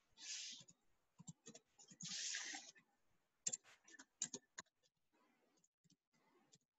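Faint, quiet sounds: two short soft hisses in the first three seconds, then a quick run of sharp clicks about halfway through, with a few weaker ticks after.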